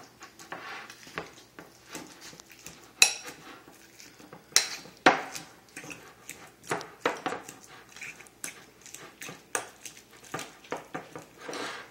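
Metal fork clinking and scraping against a ceramic bowl while mashing soft avocado, in irregular taps with a few sharper clinks about three, four and a half and five seconds in.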